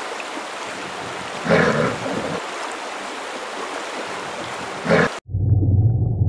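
Two brown bears play-fighting in water: steady water noise with two short growls, the first about one and a half seconds in and the second just before five seconds. The sound then cuts suddenly to a low, steady underwater rumble.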